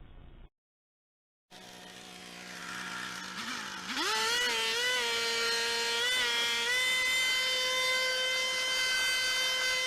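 Leaf blower running at low speed, then throttled up about two seconds in to a steady high-pitched whine, with a couple of brief dips in pitch before it settles at full speed.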